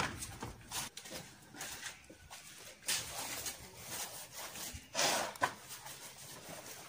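Long-handled paint roller rolling wet white waterproofing coating onto a concrete roof: a series of soft swishes, the loudest about five seconds in.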